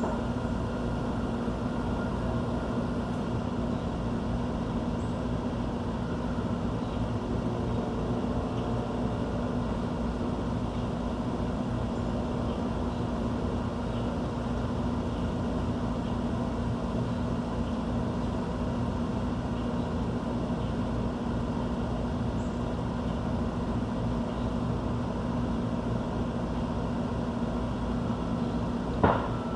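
Steady low machine hum and rumble of a city background, like traffic or an air-conditioning unit, running throughout, with a few faint high bird chirps. A single sharp knock near the end is the loudest sound.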